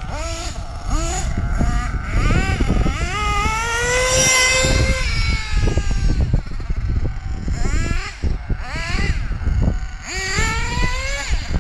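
SH .28 two-stroke nitro glow engine of an HB Lightning Stadium Sport RC stadium truck, revving up again and again as it drives off. The longest rev is held high for about two seconds around the middle. The engine is freshly broken in and its carburettor not yet tuned.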